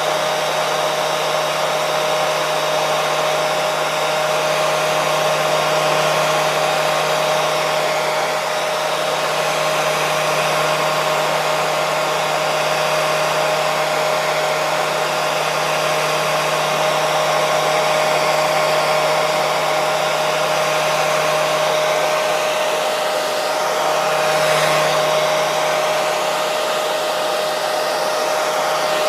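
Electric hair dryer running continuously, a steady airy rush with a constant motor hum under it.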